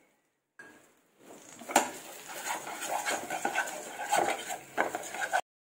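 Wooden spatula stirring and scraping a thick jaggery-and-coconut kamarkattu mixture around a non-stick frying pan, with irregular scrapes and knocks and one sharp knock a little under two seconds in. The syrup has reached rolling consistency and is being stirred in its last minutes on the heat. The sound cuts off abruptly near the end.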